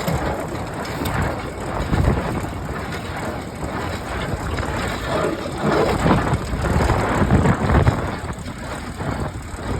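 John Deere 336 small square baler running, its mechanism clattering steadily, with heavier low thumps every second or two.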